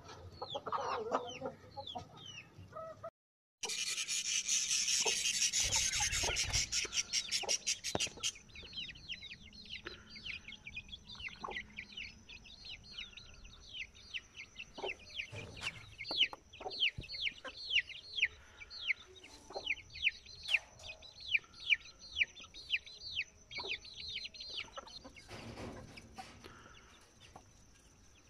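Chicks peeping over and over in short, falling cheeps, with hens clucking among them. A loud hissing rush covers them for several seconds near the start.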